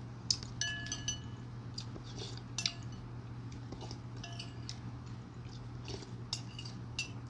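Metal spoon clinking and scraping against a ceramic soup bowl: a series of sharp clinks, several of them ringing on briefly, among softer scrapes.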